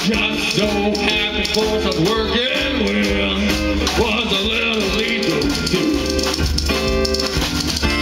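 Live band playing a song: guitar with bending notes over bass and drum kit, loud and steady throughout.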